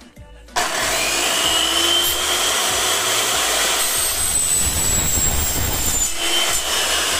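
Electric miter saw starting suddenly about half a second in and running loud with a high whine while its fine-toothed blade cuts through an aluminum blinds tube; the whine sinks slightly in pitch as the blade works through the metal.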